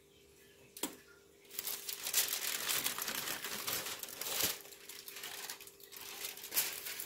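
Aluminium foil crinkling and crumpling as it is handled and pulled back off a baking tray, densest for about three seconds from a second and a half in, then lighter rustles.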